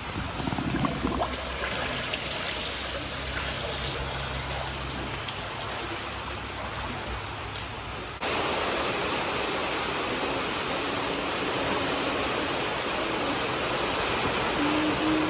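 A steady rush of storm water, which suddenly gets louder about eight seconds in.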